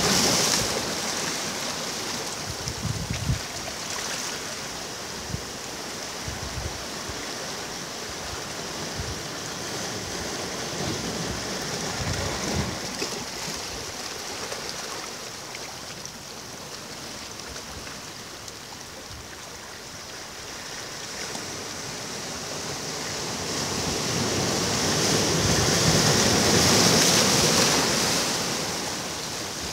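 Sea waves breaking and washing up on a beach, a steady rush of surf that swells to its loudest near the end.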